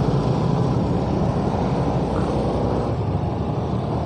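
Motorcycle running steadily on the move: an even engine drone mixed with wind and road noise.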